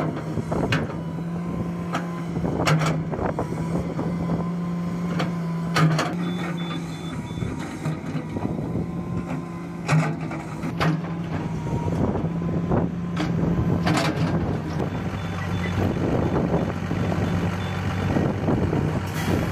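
Hydraulic excavator's diesel engine running steadily under load, with scattered sharp clanks and knocks. A high warning alarm beeps rapidly in two stretches, about six seconds in and again from about fifteen seconds.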